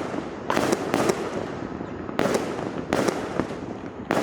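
New Year fireworks and firecrackers going off all around: sharp bangs, several in quick pairs about a quarter second apart, over a continuous crackling din of more distant explosions.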